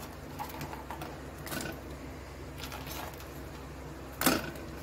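Light taps and knocks as fried dumplings are handled and dropped one by one into a metal bowl of yogurt, with one louder knock about four seconds in, over a low steady hum.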